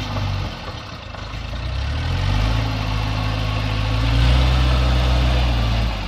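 Diesel engine of an MCM 37X tractor-loader-backhoe (TLB) running. It drops back briefly, then revs up about two seconds in and holds higher and louder as the backhoe's hydraulics work.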